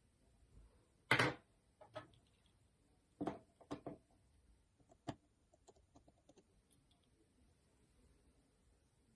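Small clicks and knocks from a Nokia Lumia 630 phone and its parts being handled and taken apart. The loudest knock comes about a second in and a quick cluster of three follows around three to four seconds, with a sharper click near five seconds and then faint light ticks.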